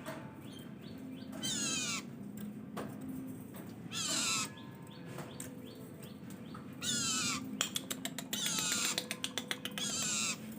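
Long-tailed shrike (cendet) giving five harsh, downward-sliding calls about half a second long, spaced a few seconds apart. Quick runs of clicking notes come between the last few calls.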